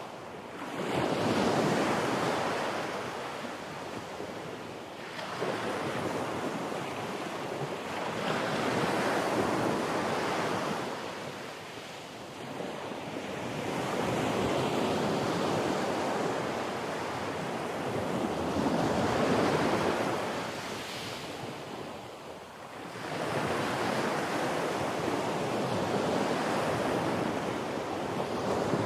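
Ocean surf breaking, a wash of noise that swells and fades in slow surges every few seconds.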